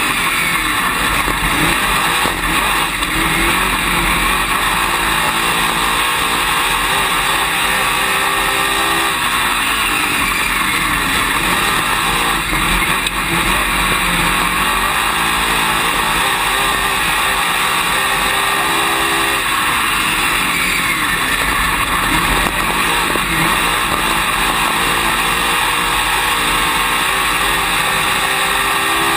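Dirt late model race car's V8 engine heard from inside the cockpit at racing speed, loud throughout. Its pitch climbs in long rises as the car accelerates and drops off as the driver lifts for the corners, about three times over the laps.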